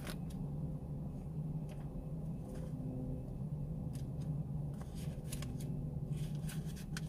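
Faint scattered clicks and light rustles of something being handled at a desk, more of them near the end, over a steady low hum.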